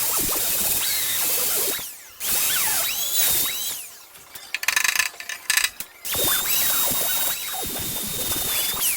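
A hand-held rotary power tool working on the scooter's metal body, running with a steady high whine. It stops about two seconds in and spins back up with a rising whine, drops out again from about four to six seconds amid short crackling noises, then spins up and runs again.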